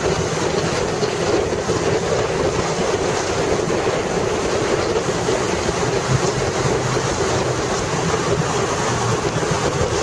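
Steady rush of wind on the microphone and road noise from a motorcycle riding through a road tunnel, with the bike's engine running underneath.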